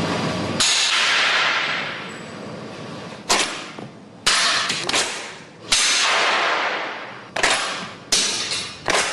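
A run of about seven sharp, sudden reports from a VKS Vykhlop 12.7 mm suppressed sniper rifle firing subsonic rounds, each dying away in a fading echo. The first, about half a second in, rings longest; the later ones come faster toward the end.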